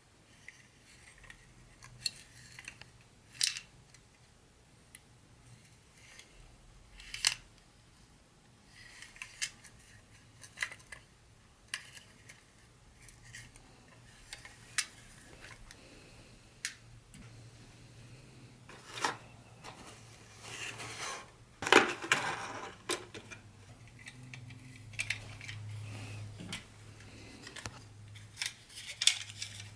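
Handling sounds from unboxing HO-scale model train pieces: a series of sharp clicks and taps, with a longer rustle about twenty seconds in and a low steady hum starting near the end.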